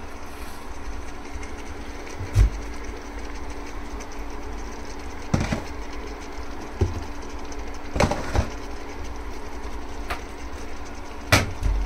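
Kitchen sounds while spices are being readied for a pot of mutton curry: a steady low hum runs under about six sharp knocks and clatters of utensils or containers, spaced a second or more apart.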